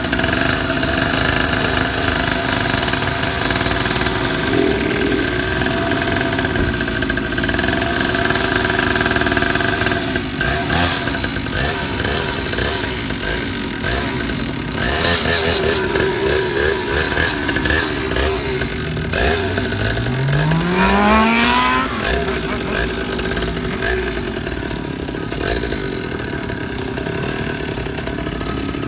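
Motorcycle engines running with a steady drone, and about two-thirds of the way through one bike revs up sharply, its pitch rising quickly for a couple of seconds.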